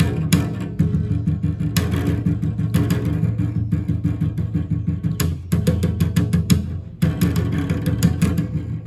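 Solo cello played as a rhythmic groove: fast repeated low notes with sharp percussive knocks mixed in, a quick run of knocks a little past the middle.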